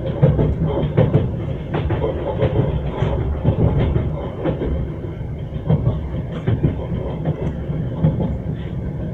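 Train wheels clattering over the rails, a string of uneven knocks over a steady low rumble of the moving carriage.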